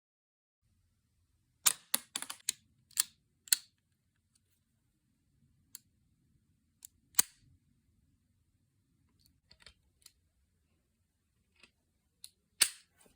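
Sharp hard-plastic clicks and snaps from a Lego pistol being worked: a quick run of clicks about two seconds in, a single loud snap about seven seconds in, a few faint ticks, and another loud snap near the end.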